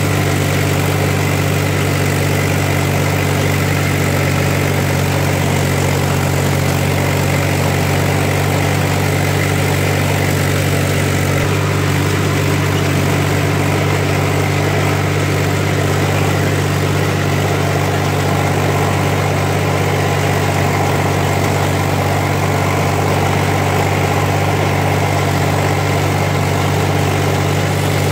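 Farm tractor's diesel engine running steadily under way, holding one even pitch throughout.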